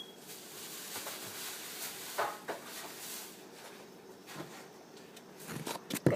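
A few short knocks and clatters of things being handled in a kitchen: a pair about two seconds in and a quicker cluster near the end.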